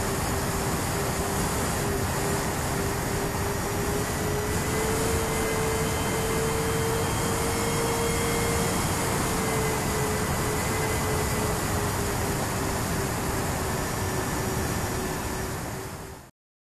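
Twin brushless motors and propellers of a Sonicmodell Binary RC plane running steadily in cruise over a rush of airflow, heard from the plane itself; the motor hum rises slightly in pitch partway through, eases back, then fades and cuts off suddenly near the end.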